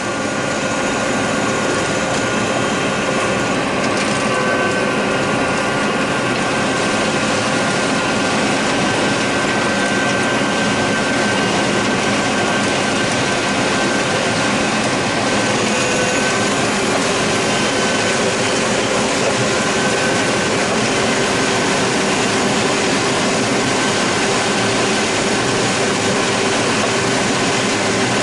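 John Deere 9600 combine running steadily while harvesting corn: a dense, even mechanical din with several steady whining tones over it.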